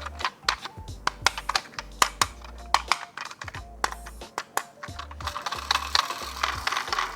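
Sharp irregular clicks and taps of plastic toy packaging being handled and opened, over background music with steady bass notes; a rustle of packaging near the end.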